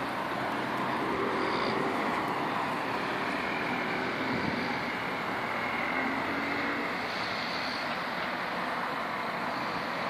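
Steady hum of distant road traffic.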